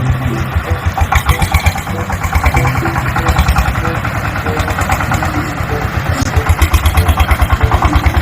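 Bulldozer engine running, a heavy diesel chugging with a fast, even beat.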